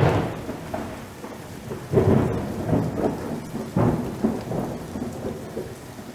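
Thunderstorm: steady rain with three rolls of thunder, the loudest at the start, then about two seconds in and again near four seconds in, each rumbling away.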